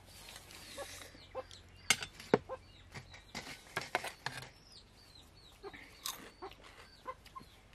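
Stainless-steel tumblers and plates clinking and tapping as cold rice-water kanji is scooped from a clay pot and sipped, with short sips in the first second. Chickens cluck in the background.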